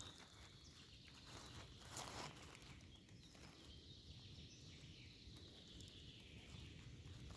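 Near silence: faint forest ambience with a low rumble and a single light footstep about two seconds in.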